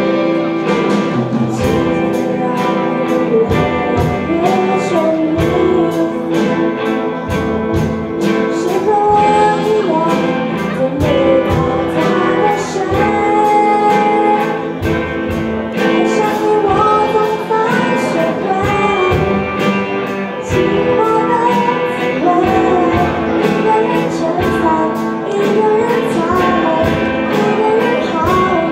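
Live rock band playing a song: a female lead vocal sings over electric guitars and a drum kit keeping a steady beat.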